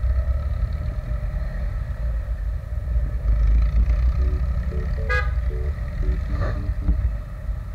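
Steady low wind and road rumble from riding a Yamaha Sniper 150 motorcycle in traffic, heard from a camera on the moving bike. A short vehicle horn beep sounds about five seconds in, with a fainter one a moment later, over quiet background music.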